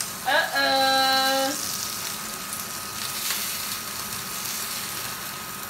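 Eggs sizzling in hot oil in a small frying pan while a metal spatula works under them. About half a second in, a person's voice holds one long note for about a second over the sizzle.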